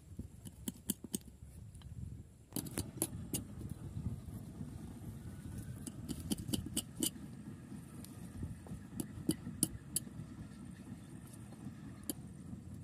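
Knife blade cutting and scraping into a green pumpkin's rind and flesh: a run of sharp, irregular clicks and scrapes over a steady low rumble.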